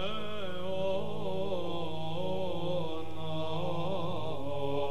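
Slow sung chant over a steady low drone, used as background music.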